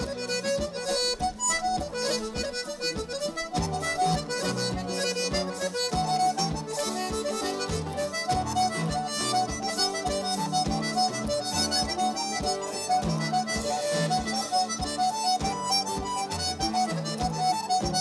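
Irish traditional reel played live: an accordion carries the fast melody over guitar and a drum kit keeping a steady beat.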